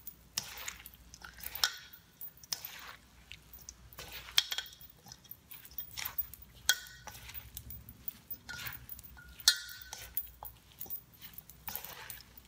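A spoon tossing chopped tabbouleh salad in a stainless steel bowl: wet squishing and scraping, with irregular clinks of the spoon against the steel. Twice the bowl rings briefly.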